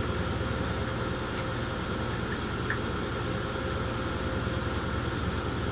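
Steady machine hum with a fast, even buzzing rattle from the device shaking a plastic tub of sand to simulate an earthquake.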